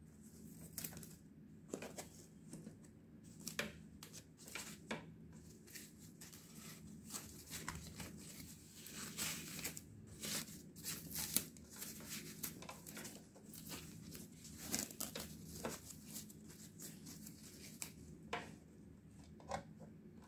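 Thin packaging wrap rustling and crinkling as it is pulled off a sandwich grill by hand, in faint, irregular scrapes and crackles.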